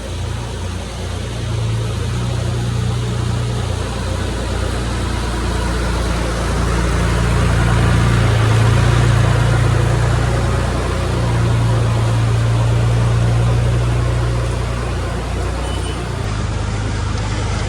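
1960s Oliver tractor's engine running with a steady low throb, growing louder toward the middle and easing off again as the tractor is driven in.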